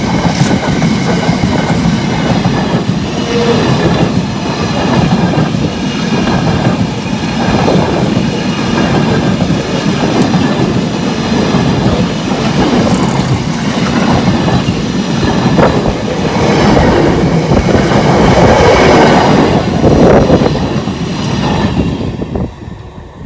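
Container flat wagons of an intermodal freight train rolling past at close range: a steady rumble of wheels on rails with a faint high wheel squeal. The sound is loudest shortly before the last wagon passes, then drops away quickly near the end.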